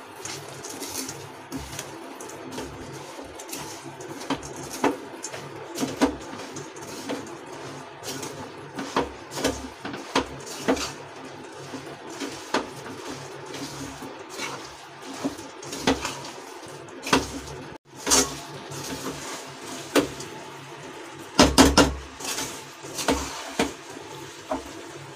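Metal spatula scraping and knocking against a metal kadhai while stirring a thick mixture of ground coconut and nuts in sugar syrup: irregular scrapes and clicks, with a louder run of knocks about three-quarters of the way through.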